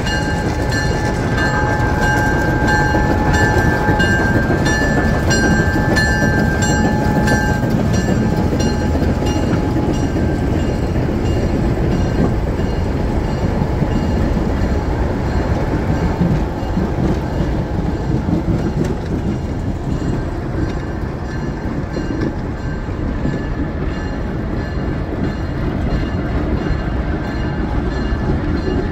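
A 1946 ALCO S1 switcher and a 1955 ALCO FPA-4 diesel locomotive running and rolling slowly along the track: a deep, steady diesel engine rumble with the sound of wheels on rail. A steady high whine sounds over the rumble for the first seven seconds or so, then stops.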